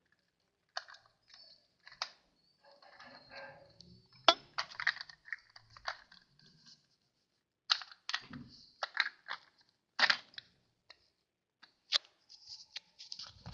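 Hard plastic toy parts being handled: scattered clicks, knocks and short rustles from the gray plastic light-and-sound housing of a Tonka crane truck toy.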